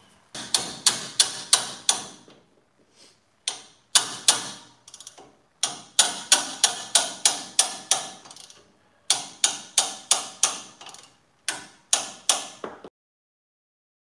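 A ratchet wrench clicking in runs, about three to four sharp metal clicks a second with short pauses between runs, as it works loose the brake caliper bracket bolts on a Chevy Silverado/GMC Sierra front wheel. The clicking cuts off suddenly near the end.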